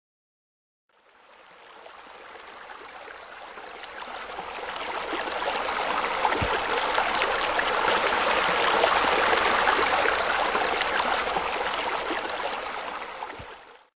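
Rendered sound of splashing, running water from a pool bubbler water feature: a steady rush that fades in about a second in, swells to its loudest around the middle, and fades out just before the end.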